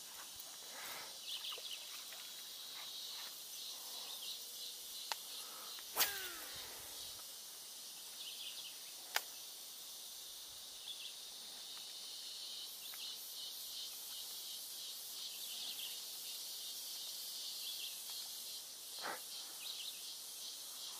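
Steady high-pitched chorus of insects with a pulsing buzz. A few sharp clicks cut through it, the loudest about six seconds in, followed by a short falling tone.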